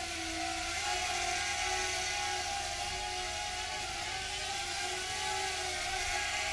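WLToys Q242 mini quadcopter's small electric motors and propellers whirring in flight, the pitch wavering up and down as the throttle changes.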